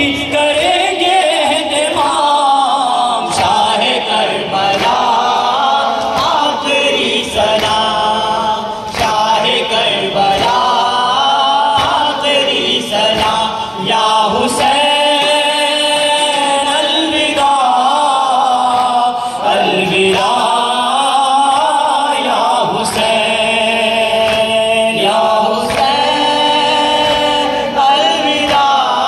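A group of men singing a noha (Urdu mourning lament) together in unison, amplified through a microphone, with long sung phrases. Sharp strikes through the singing fit the mourners' chest-beating (matam).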